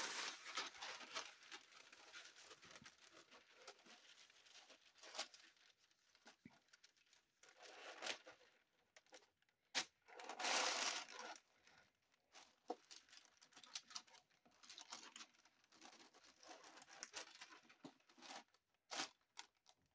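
Parchment paper being pulled off its roll and smoothed flat by hand, crinkling and rustling in irregular bursts, with a longer, louder rustle about halfway through and a few sharp clicks.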